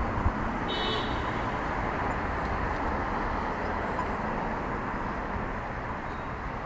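Steady outdoor street noise of passing vehicles, slowly fading, with a brief high chirp about a second in.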